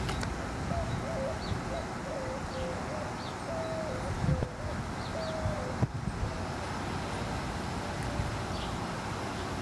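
A bird gives a series of short, low hooting notes over several seconds, some held, some clipped, with faint high chirps of small birds and wind rumble on the microphone.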